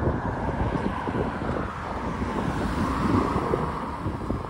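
Wind buffeting the microphone over road-traffic noise, with a car swelling past about three seconds in.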